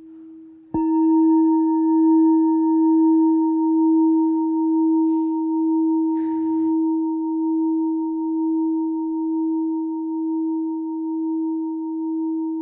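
A single deep, bell-like tone is struck just under a second in and rings on, with a slow wavering pulse and a very gradual fade.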